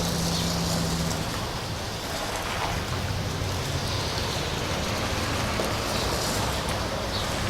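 Classic car engine running steadily under a rushing hiss.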